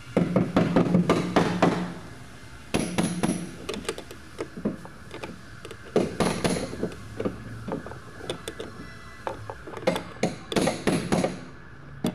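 Tool work on a car seat's mounting bolts: several bursts of rapid clicking and knocking, the longest in the first two seconds, then scattered knocks.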